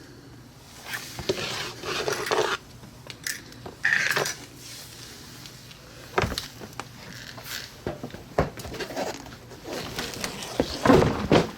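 Scattered metallic clinks and knocks from handling the motorcycle and its mini air compressor, with a louder cluster near the end.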